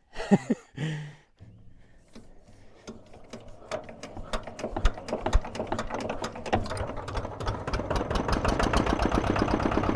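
Old site dumper's engine, unused for over a year, starting up: it fires weakly and slowly at first, then its beats come faster and louder as it catches and keeps running.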